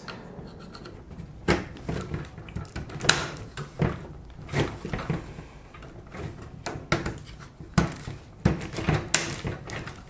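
Plastic top-rack adjuster parts of a dishwasher being worked and snapped onto the wire rack: irregular clicks and light knocks of plastic against the coated wire, about a dozen over the stretch.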